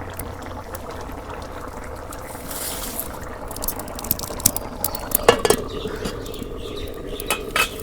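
Braised chicken simmering and sizzling in a metal pot, a steady bubbling hiss, with sharp clinks of a metal utensil against the pot, the loudest about five seconds in and near the end.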